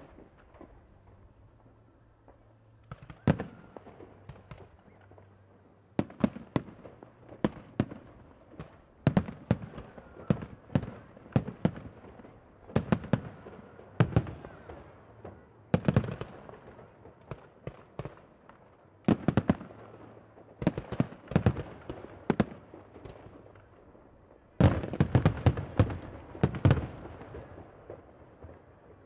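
Aerial firework shells bursting overhead: a long string of sharp bangs, each with an echoing tail, some single and some in quick clusters, with the densest volley near the end.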